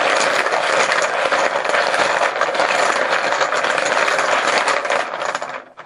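Poker chips clattering together as they are shaken and mixed, a dense, continuous rattle of many small clicks that stops just before the end.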